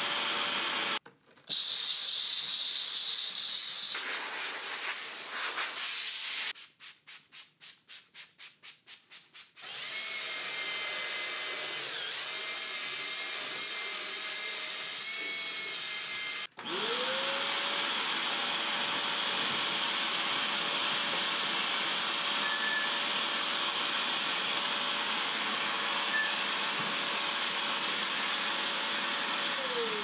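A series of upholstery-cleaning machine sounds: an extractor's vacuum hand tool sucking across a carpeted truck door panel, then a cordless drill spinning a scrub brush against the carpet. In the second half the extractor's motor runs with a steady whine, then winds down near the end.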